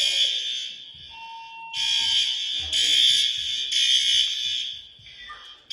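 Building fire alarm horns sounding during a system test: a loud, high-pitched blare in repeated pulses, stopping briefly about a second in and again near the end.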